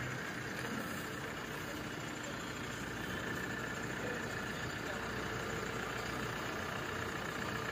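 Diesel engine of an Escorts F15 Hydra crane running steadily while the crane lifts a slung load, with a steady high whine over the engine noise.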